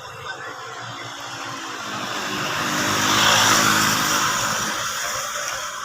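A motor vehicle passes close by, its engine and tyres growing louder to a peak a little past the middle and then fading as it moves away.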